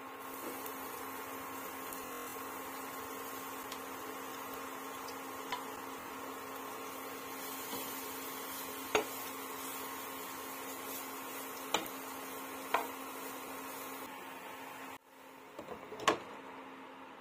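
Induction cooktop humming steadily under a faint hiss while grated carrots cook in a nonstick frying pan. A wooden spatula knocks sharply against the pan a few times, and near the end a glass lid clinks onto the pan, the loudest sound.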